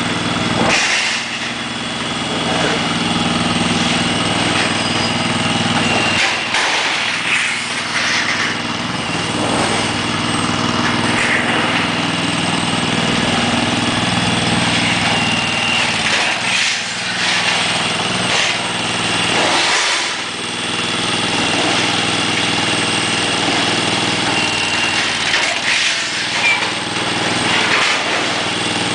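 A standing seam metal roofing roll-former running: a steady motor drone with occasional sharp metallic clanks.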